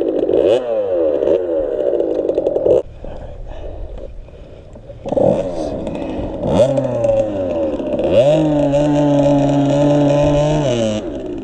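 Dirt bike engine revving up and down, then held steady at high revs for about three seconds before easing off near the end.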